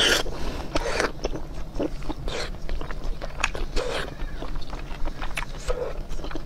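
Close-miked wet chewing and lip-smacking of soft, fatty red-braised pork belly, with many small clicks of mouth and tongue. There is a short, louder sucking slurp right at the start as a piece goes into the mouth.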